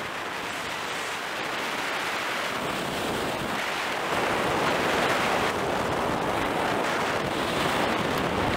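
Wind rushing over a car-mounted camera's microphone, mixed with road noise as the car drives along a highway. It is a steady rushing hiss that grows louder about four seconds in.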